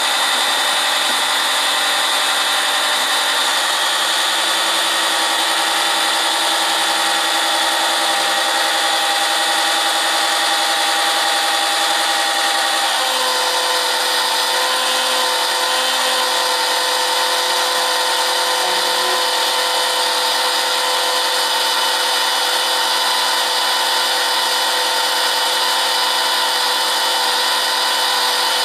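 A small electric motor running steadily with a whine; its pitch steps down slightly about thirteen seconds in.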